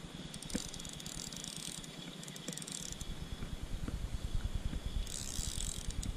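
A light spinning reel being cranked in several short bursts, its gears whirring as a hooked fish is reeled in.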